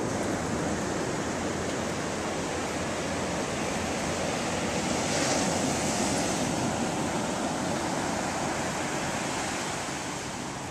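Ocean surf breaking and washing up the beach: a steady rush that swells about halfway through and eases off near the end.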